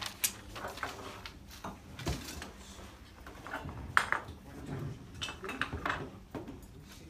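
Scattered metallic clinks and knocks of copper pipe and pipe benders being handled on workbenches, with a few sharper clanks about two and four seconds in.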